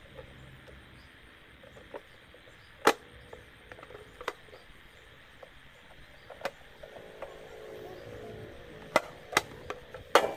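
Sharp clicks and light knocks of a small PVC model cab being handled, its hinged doors being opened and shut. There are about six clicks, spaced apart: a loud one about three seconds in and three in quick succession near the end.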